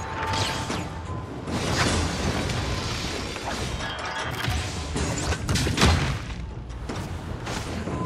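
Action background music mixed with fight sound effects: whooshes and several heavy impacts, the loudest about six seconds in.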